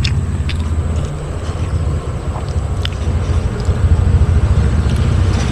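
Steady low rumble of a motor vehicle engine running nearby, with a few faint clicks of chewing on top.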